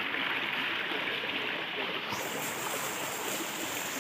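Steady rushing of a rocky mountain stream, growing brighter and hissier about two seconds in.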